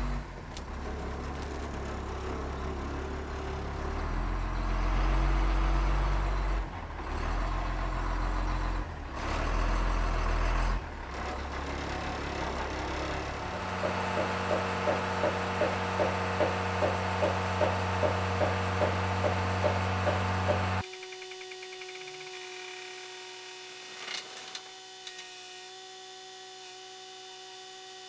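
International dump truck's engine running and revving as the truck backs up, then running steadily with a regular pulse about twice a second. About three quarters of the way through the sound drops suddenly to a quieter steady whine while the hydraulic hoist tips the bed to dump its load.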